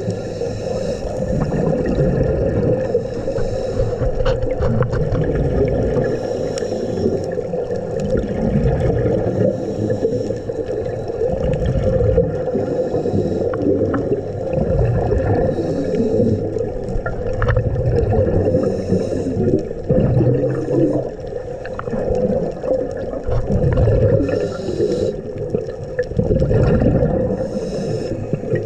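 Underwater scuba-diving sound: bubbles gurgling in bursts every few seconds, over a steady low hum.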